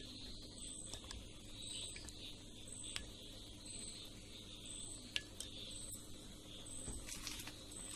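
Beaten eggs being stirred with a silicone spoon in a glass bowl: faint stirring with a few light clicks of the spoon against the glass. A faint high chirp repeats steadily, about every three-quarters of a second.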